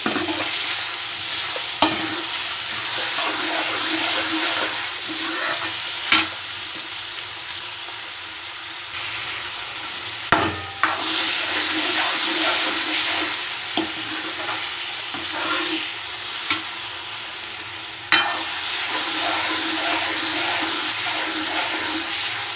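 Chopped onions and tomatoes sizzling in hot oil in a steel kadai while a steel ladle stirs them, scraping the pan. Several sharp knocks ring out where the ladle strikes the pan.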